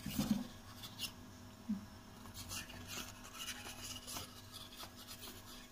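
Spoon scooping and scraping cornflour out of a plastic packet: faint scrapes and packet rustles, with a few light clicks in the first two seconds.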